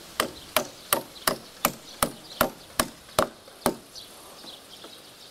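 Hammer driving a big nail into the timber of a wooden swing frame: about ten evenly paced blows, roughly three a second, which stop about two-thirds of the way through.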